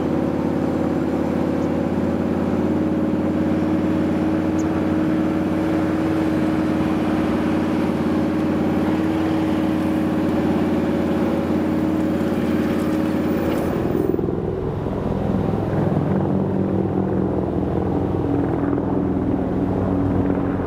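A steady mechanical drone from a vehicle, with even tones held throughout. About fourteen seconds in it switches abruptly to a different, duller drone.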